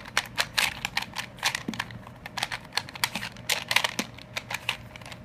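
Rubik's Cube faces being turned by hand: quick irregular plastic clicks and clacks, several a second.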